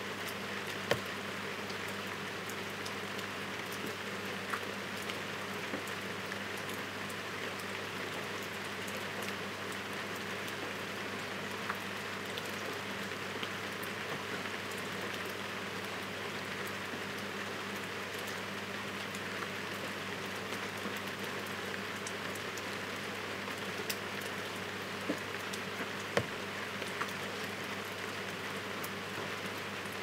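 Heavy rain falling steadily, a dense even hiss, with a handful of louder single drop hits close by. A faint steady low hum runs underneath.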